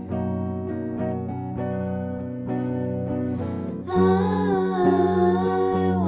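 Background music with plucked notes. A louder, wavering vocal melody comes in about four seconds in.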